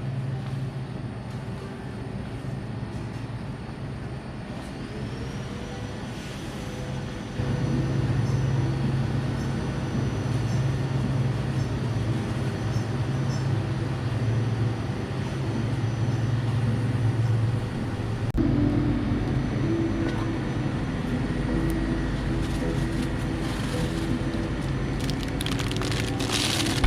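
Steady engine drone and road noise of a moving Toyota Hiace camper van, heard from inside the cabin. The level steps up about seven seconds in and the drone changes about eighteen seconds in.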